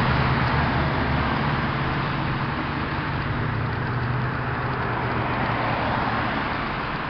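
Steady road traffic and vehicle engine noise with a low engine hum.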